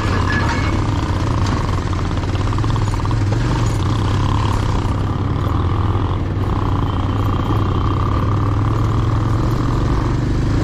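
Motorcycle engine running steadily at low speed, heard from the bike itself, a constant low hum with road noise from the tyres on a rough dirt and gravel track.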